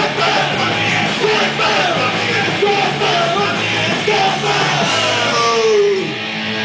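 Loud punk rock band playing live, with a yelled vocal over guitars and drums; near the end the voice slides down in one long note.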